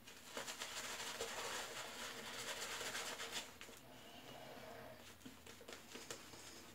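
Shaving brush swishing soap lather with quick, scratchy strokes, strongest for about three seconds, then softer and more scattered.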